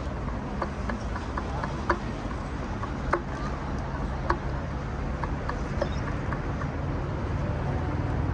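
Outdoor ambience beside a railway line: a low rumble that grows louder near the end, scattered sharp clicks, and faint murmur of a waiting crowd.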